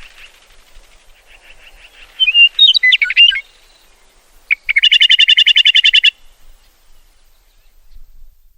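Meadowlark singing: a loud phrase of varied whistled notes about two seconds in, then a fast, even trill of about a dozen notes a second from about four and a half seconds to six, over faint chatter.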